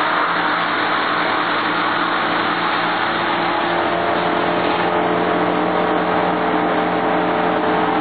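Wood chipper's engine running steadily under load while freshly cut tree branches are fed through it, the engine drone mixed with the dense noise of wood being chipped.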